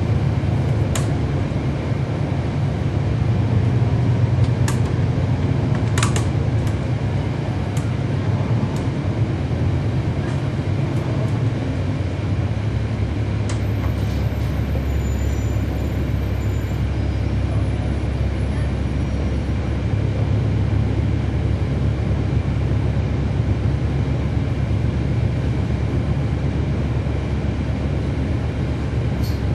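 Cabin sound aboard a 2012 NABI 416.15 transit bus, its Cummins ISL9 diesel engine running with a steady low drone. A few sharp clicks and rattles come in the first eight seconds or so.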